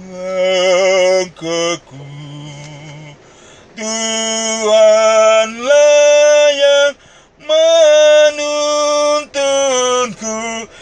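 A man singing a slow Indonesian Christian song unaccompanied, holding long notes with a wavering pitch, in phrases broken by short pauses.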